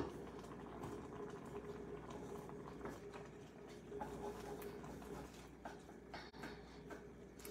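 Seasoned water simmering in a nonstick sauté pan, a steady fizzy bubbling dotted with small light taps and clicks as wooden chopsticks stir and break apart rice noodles. A faint steady hum runs underneath.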